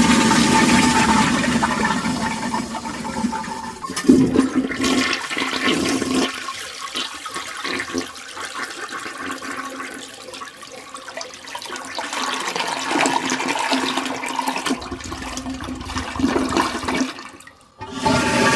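Toilet flushing: a loud rush of water that eases after a few seconds into quieter gurgling and trickling, swells again, then dies away almost to nothing near the end before a new rush of water starts.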